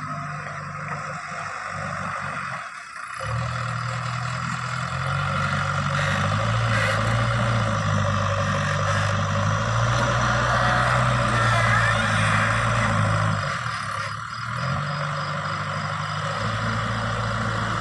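Heavy diesel engine running, rising in speed and loudness for several seconds through the middle, then easing back to a steady run, with brief drops about three seconds in and again near the end.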